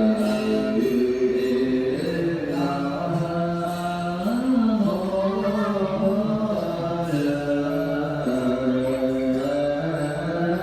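Slow background music of long, held notes that change pitch slowly, one into the next.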